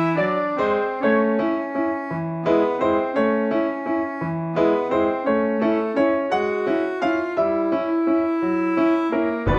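Instrumental background music: a melody of short, evenly paced notes over a lower accompaniment, with no other sound.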